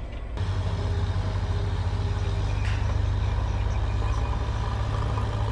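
Heavy diesel engine of earthmoving machinery running steadily, getting louder about half a second in and then holding.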